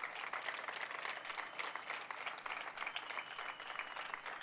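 Crowd applauding: a steady dense patter of many hands clapping.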